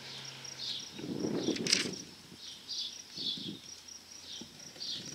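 A knife cutting through the packing tape of a cardboard box: a scraping rasp about a second in that ends in a sharp crack, then a shorter scrape a little later. A steady high chirping runs behind it.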